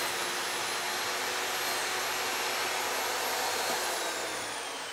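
SawStop 15-amp jobsite table saw running at full speed with its flesh-sensing brake switched off, the blade cutting through a foam board and a fake hand made of hot dogs and a hamburger. Near the end the motor's whine falls in pitch as the saw winds down.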